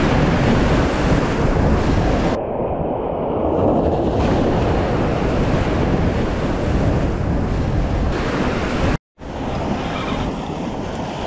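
Sea surf breaking and washing against rocks, with wind buffeting the microphone. The sound cuts out for a moment about nine seconds in.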